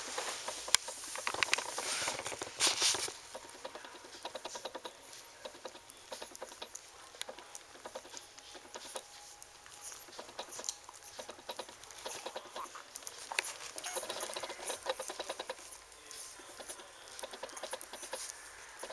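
Two standard poodle puppies suckling at their mother's teats: a steady run of rapid small smacking clicks, busier and louder in the first few seconds.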